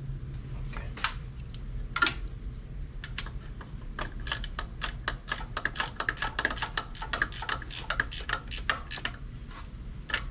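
Ratchet wrench clicking in quick runs of several clicks a second, with a few single clicks first, as the new distributor on a 1992 Nissan Sentra 1.6 engine is snugged down.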